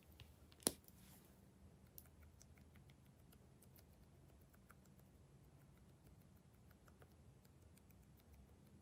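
Faint, sticky clicks and ticks of glossy slime being worked and mixed, with one sharper click a little under a second in.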